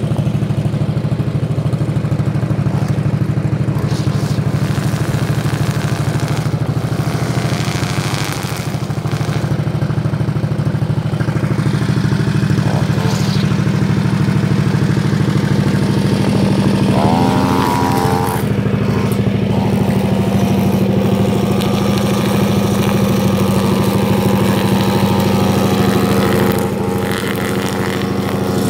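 Small lawn-equipment engines running steadily: a low, even engine hum throughout, and past the middle a gas string trimmer's engine rising in pitch and then running higher alongside it.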